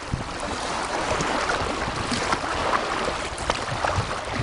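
Lake water lapping and sloshing against shoreline rocks, with wind on the microphone and a few short clicks.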